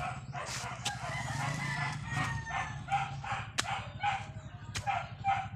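Chickens clucking in a steady run of short calls, with a drawn-out rooster crow about a second in and a few sharp clicks.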